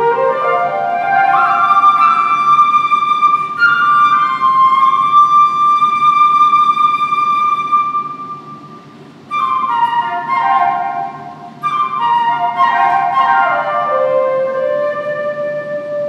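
Unaccompanied flute playing: a fast upward run into a long held high note that fades away, then two quick falling flurries, about nine and twelve seconds in, that settle on a lower held note.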